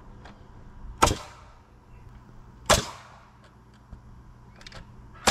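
Pneumatic framing nailer firing three times, driving nails through a wooden girt into a post: sharp single cracks about a second in, near the three-second mark and right at the end, each with a brief ringing tail.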